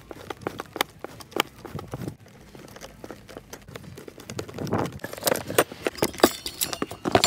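Irregular metallic clicks and knocks of hand tools and parts being handled while the screws are taken out of the bracket on an old power-window motor, busier and louder in the second half.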